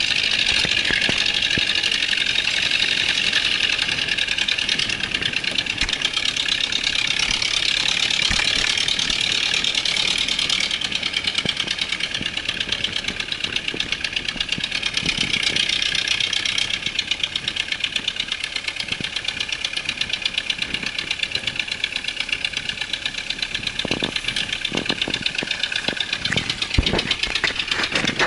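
Engine of a Willys Rural utility vehicle running steadily as it drives slowly over sandy streets, heard from on board, with a regular pulsing beat. A few knocks and rattles from the vehicle come near the end.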